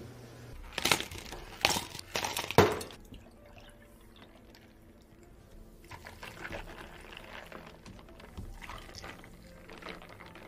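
A few loud clattering knocks in the first three seconds, then chocolate milk tea poured from a plastic pitcher into plastic cups over ice and tapioca pearls, a softer uneven splashing.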